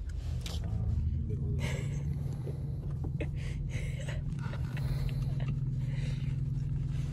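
Car engine idling, a steady low hum heard from inside the cabin, with a few faint clicks and rustles.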